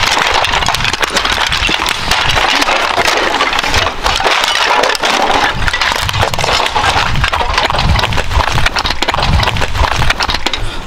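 Footsteps crunching and cracking over broken flat shards and rubble, a dense stream of crackles and snaps, with irregular low thumps underneath.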